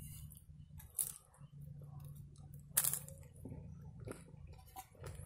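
Crisp flatbread crunching as it is broken and eaten, with two sharp crunches about a second in and just before three seconds and smaller crackles after, over a low steady hum.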